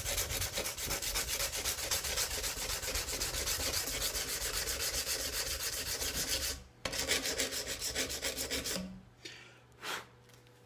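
120-grit sandpaper on a flat paint stick, rubbed by hand back and forth along a tanto knife blade in quick, even strokes. There is a brief pause about two-thirds through, and the strokes stop near the end.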